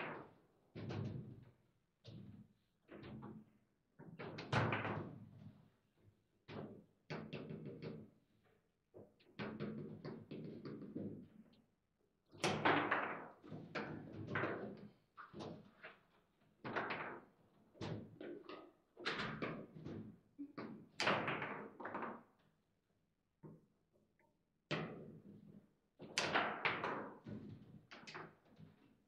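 Table football play: sharp clacks and knocks as the ball is struck by the rod-mounted figures and knocks around the table, coming in irregular flurries with brief pauses between.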